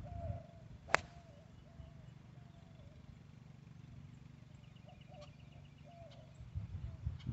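A golf club strikes the ball on a full swing: one sharp click about a second in.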